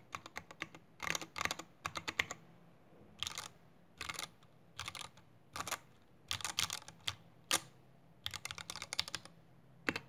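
Typing on a mechanical keyboard fitted with stock Matrix Lab FFF linear switches (made by JWK), a 1.5 mm brass plate, thick dye-sub PBT keycaps and a solid aluminium 60% case: quick runs of keystrokes in short bursts with brief pauses between them.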